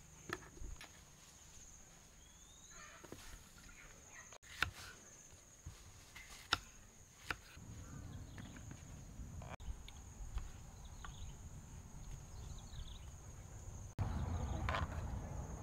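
A kitchen knife cutting cucumber, with a few sharp clicks and taps of the blade against the wooden chopping block. Under it insects drone steadily at a high pitch, and a low rumbling noise grows louder near the end.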